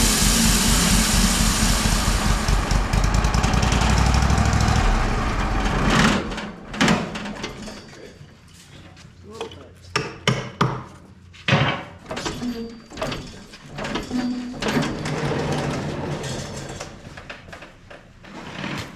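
Wood-Mizer LT35 sawmill running, its band blade cutting into an oak 8x8 post. The cut stops about six seconds in, followed by scattered knocks and clunks.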